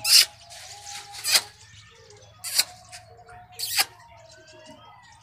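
A person calling pet rabbits with short, sharp hissing or clicking sounds made with the mouth, four of them about a second apart.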